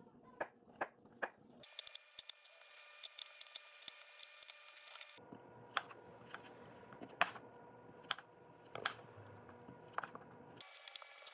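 Kitchen knife chopping a carrot and then a zucchini on a wooden cutting board: sharp taps of the blade striking the board, a few quick ones at first, then more spaced out, over a faint steady hum.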